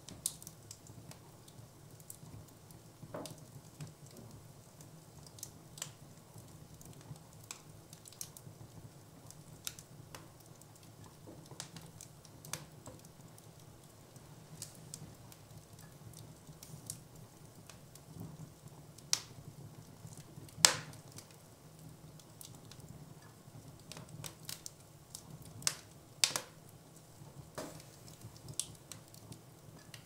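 Wood fire in a fireplace crackling, with irregular sharp pops and snaps throughout. A few louder cracks come about two-thirds of the way in and again near the end, over a faint steady low hum.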